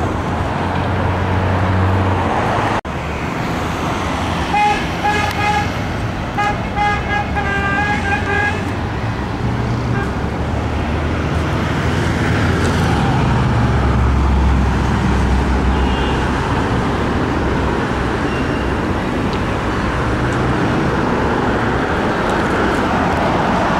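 Road traffic running past, with engine rumble swelling as vehicles go by. A car horn toots in two runs of short repeated honks about five and seven seconds in.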